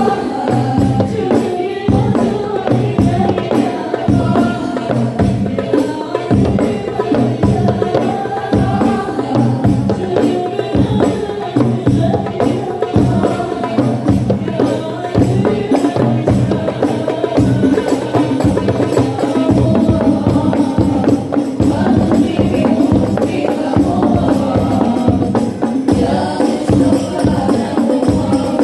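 Music: voices singing a melody over steady, dense hand-drum and tambourine-like percussion.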